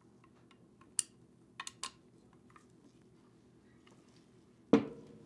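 Small metal parts of an HVLP spray gun being handled and fitted into the aluminium gun body: a few light clicks about a second in and again a little later, then one loud knock near the end.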